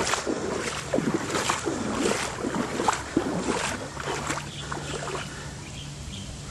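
Floodwater splashing and sloshing in a steady rhythm, about one stroke every three-quarters of a second, as someone moves through it. The strokes grow fainter in the second half, where a faint steady low hum comes in.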